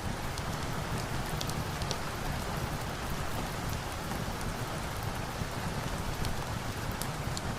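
Steady rain falling, an even rushing hiss with scattered small sharp ticks through it.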